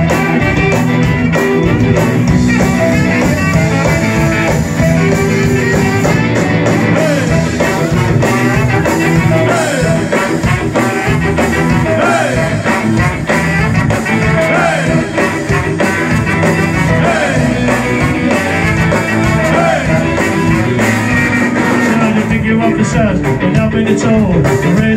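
A ska band playing loud amplified music live, with electric guitar, bass, drums, trombone and a singer.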